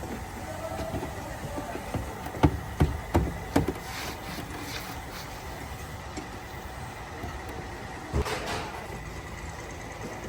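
Sharp knocks in a workshop: four in quick succession, about two and a half seconds in, then one more near the end, over a steady background noise.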